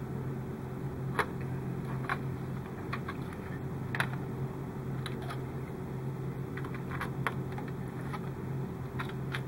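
Irregular small clicks and taps as hands handle plastic model parts and thin wire leads, over a steady low hum.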